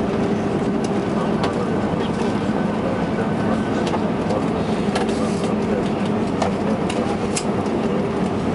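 Airbus A320 cabin noise: a steady rush of engines and airflow with a low hum, and scattered light clicks and rattles.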